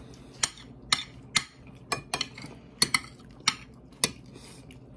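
Cutlery clinking against a dinner plate while eating: about nine sharp clicks at irregular intervals over three and a half seconds.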